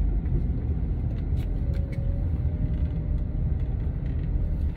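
Steady low road and engine rumble of a moving car, heard from inside the cabin, with a faint wavering whine above it.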